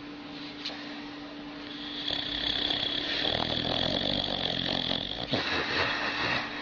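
Old dog snoring in its sleep, sounding much like a human snore: a long, rough snoring breath swells up about two seconds in and fades near the end, over a steady background hum.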